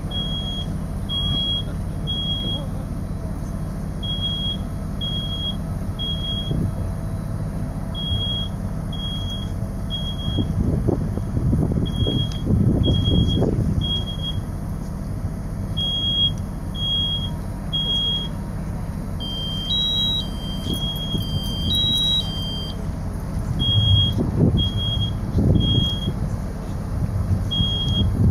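Smoke alarm sounding the temporal-three evacuation pattern: three short high beeps about a second apart, repeating every four seconds, the standard signal that smoke has been detected. A second alarm with a higher beep overlaps briefly about two-thirds through, over a steady low engine rumble.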